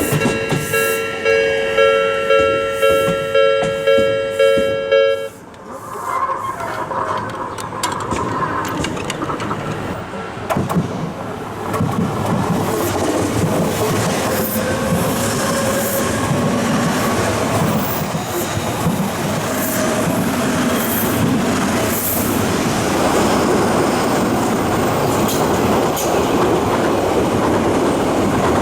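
Japanese level-crossing warning bell clanging about twice a second, which stops abruptly about five seconds in. After that an Odakyu 2000-series electric train passes over the crossing, with a steady rumble and the clatter of wheels over the rail joints, and a brief electric motor whine as it approaches.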